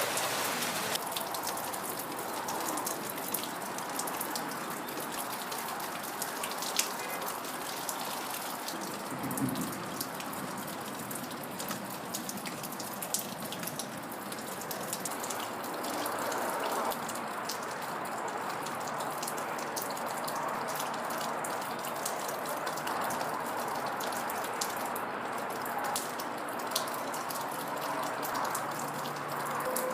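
Steady rain falling, with many individual drops striking close by as sharp little clicks over the even hiss of the downpour.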